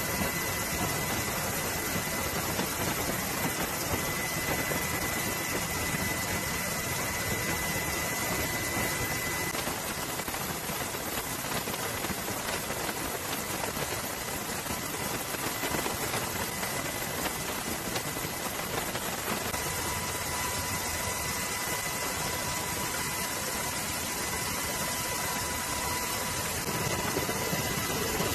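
Steady engine-like drone mixed with hiss, even in level throughout, with faint thin high tones running through it.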